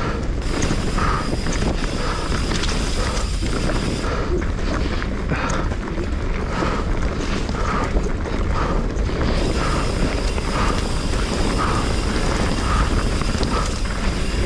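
Wind buffeting the microphone over the rolling rumble and rattle of a Commencal Meta HT hardtail mountain bike riding a dirt trail.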